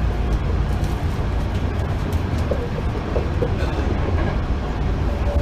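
Hankyu 8000 series electric train heard from inside the passenger car while running: a steady low rumble of wheels on the rails, with faint steady tones above it.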